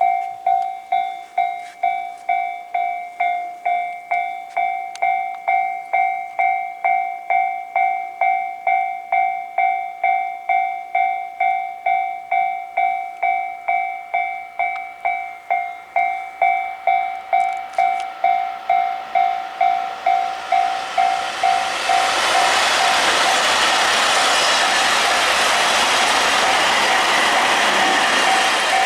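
Japanese level-crossing warning bell ringing, an electronic ding repeating about twice a second. About twenty seconds in, a train's noise builds up and from about twenty-two seconds runs loud over the crossing, drowning much of the bell until near the end.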